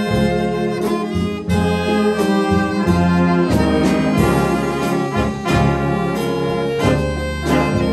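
Jazz big band playing live, the trumpets and trombones sounding full chords together with the saxophone section.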